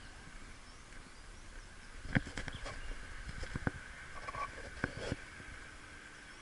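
Pond-side evening chorus: a steady high chirring, with a few small chirps, and a handful of sharp knocks and clicks from about two to five seconds in.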